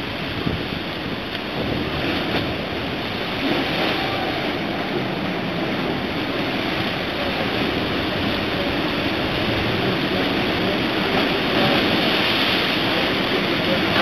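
Rough sea and wind: a steady rush of breaking, churning waves with wind buffeting the microphone, growing a little louder near the end.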